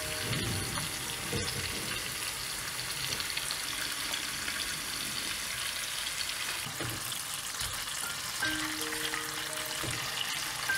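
Food frying in hot oil in a pan, with a steady sizzle throughout and a couple of short utensil knocks in the first second and a half. Light background music comes in near the end.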